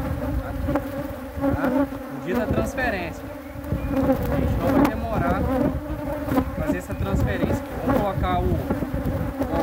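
Honey bees swarming around a hive: a steady buzzing hum, with single bees whining past close by now and then.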